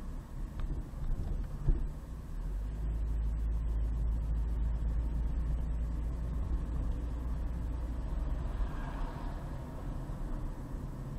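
Car driving on a city street: a steady low rumble of engine and tyres, with a single sharp knock about a second and a half in.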